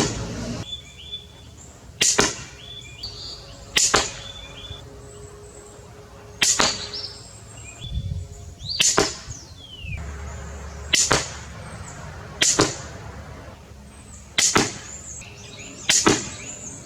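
Cobra pistol crossbow being shot repeatedly: a sharp snap about every two seconds, nine times. Birds chirp faintly behind.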